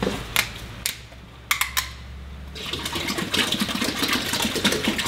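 A few sharp clicks, then white vinegar glugging out of an upended plastic jug into a plastic tub of water, starting about two and a half seconds in.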